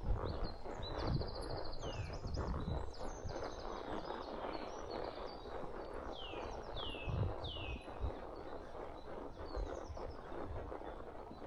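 Birds singing, with a falling whistled call repeated several times in the second half, over the dull thuds of a horse's hooves walking on a dirt trail and constant rustling.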